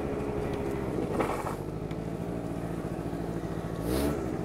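Small scooter engine running steadily at low revs as the scooter rolls slowly; near the end a brief rush of noise comes as the engine note drops.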